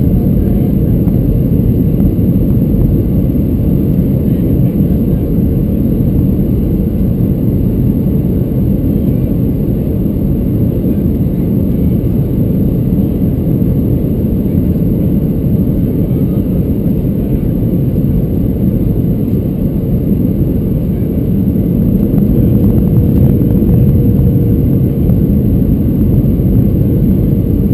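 Steady cabin noise of a Boeing 737-600 on final approach with flaps extended: the roar of its CFM56 engines and the airflow, heard from a window seat, growing a little louder near the end.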